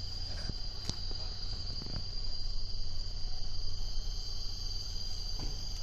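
Steady high-pitched insect drone holding one constant tone throughout, over a low background rumble, with a faint click about a second in.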